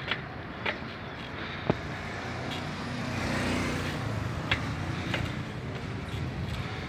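Steady rumble of road and wind noise from riding along a street, with a few sharp knocks scattered through it. A motor vehicle's sound swells louder about three seconds in.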